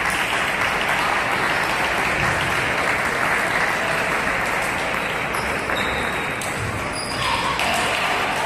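Steady crowd noise of spectators clapping, with some chatter mixed in.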